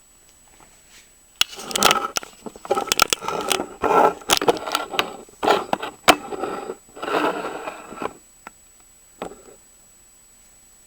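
Plastic Rubik's cube being turned rapidly by hand: quick clicking and scraping of the layers twisting. A dense run of turns starts about a second and a half in and stops about eight seconds in, followed by a couple of single clicks.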